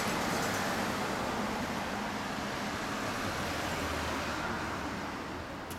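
2004 Honda CB750 (RC42) air-cooled inline-four running steadily at idle through an SP Tadao titanium full exhaust, easing off slightly near the end.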